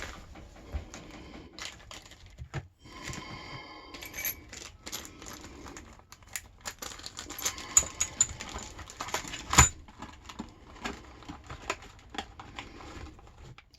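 An Abloy padlock and its cardboard box being handled: scattered small clicks and light knocks with some rustling, and one sharper knock about ten seconds in.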